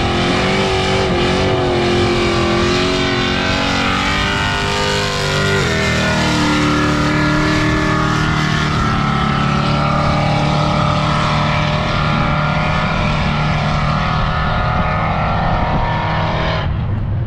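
A race car's engine revving, its pitch sliding up and down as it accelerates. After about six seconds it gives way to a car engine held at a steady high rev while the rear tyres spin in a long burnout.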